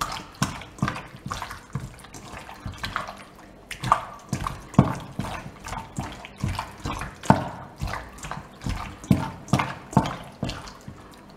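Hand squelching raw chicken pieces through an egg-and-yogurt mixture in a stainless steel bowl: wet squishing strokes, about two a second.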